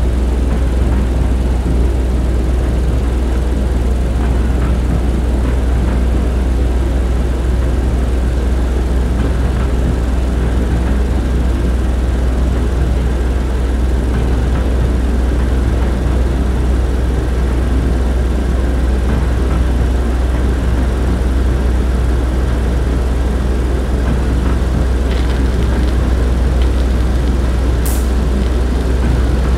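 Steady, unbroken low rumble of a moving train, heard from inside a railway carriage.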